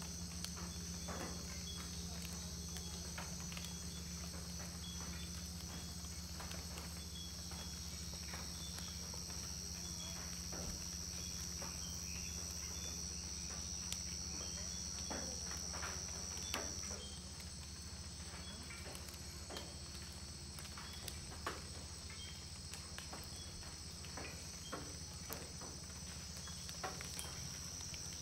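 Amazon rainforest insect chorus: a steady, shrill high trill with a fainter repeating chirp beneath it and scattered small clicks. The loudest high note of the chorus drops back a little over halfway through.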